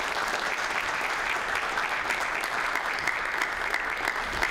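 A roomful of people applauding, many hands clapping steadily.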